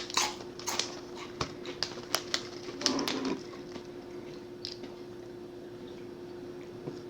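Crisp crunches and sharp clicks from microwaved pork rinds being eaten, a handful over the first three seconds or so, over a faint steady hum.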